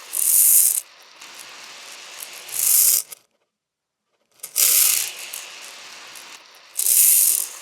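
Small plastic beads pouring and rattling: four loud bursts of a bright, hissing rattle, each about half a second, with a softer trickle between them and a second of silence midway.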